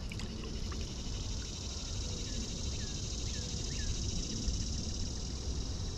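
Steady high-pitched chorus of summer insects, with a few short falling bird chirps about two to three and a half seconds in, over a low rumble.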